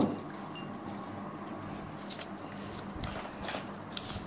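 A folded paper chit rustling and crinkling quietly as it is drawn from a glass bowl and unfolded, with a brief sharp sound right at the start and a few soft crinkles later on.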